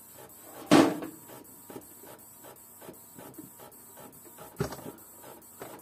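Faint, rapid ticking from a desktop PC's 500 W power supply that fails to start the computer, about four ticks a second, which the owner takes as a sign that the power supply is faulty. Two louder knocks, about a second in and near the end.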